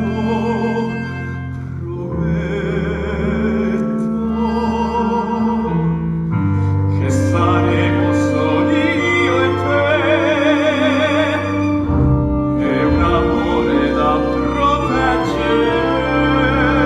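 A singer with strong vibrato over a theatre orchestra with bowed strings: a song from a live stage musical, growing fuller about halfway through.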